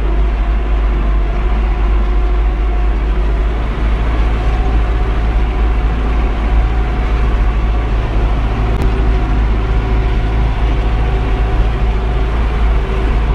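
MTZ-82 tractor's four-cylinder diesel engine running steadily with a deep, even drone.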